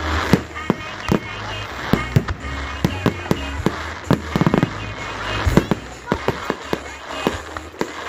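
Aerial fireworks display: shells and comets bursting in a rapid, uneven run of sharp bangs and crackles, several a second.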